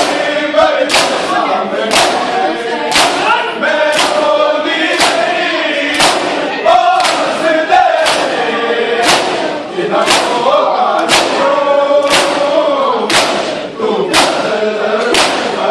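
A crowd of men doing matam, striking their bare chests with open hands in unison about once a second, while a group of voices chants a noha (a Shia lament) over the beat.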